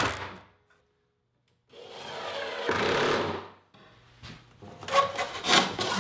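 Cordless impact driver driving 2-inch screws into a wooden cabinet: the tail of one run at the very start, then a second screw driven about two seconds in, a high motor whine turning rougher as the driver hammers the screw home. Near the end, a plywood jig knocks and scrapes against the wooden cleats and cabinet sides.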